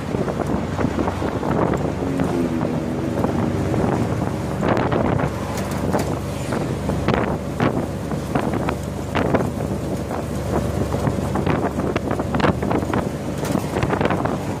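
A tuk tuk running along a city street with its small engine humming steadily, heavily buffeted by wind blowing across a smartphone microphone.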